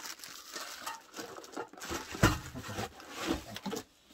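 A cardboard box and a plastic-wrapped metal alcohol stove being handled: rustling and scraping with scattered light knocks, and a louder knock about two seconds in as the stove is set down on the wooden table.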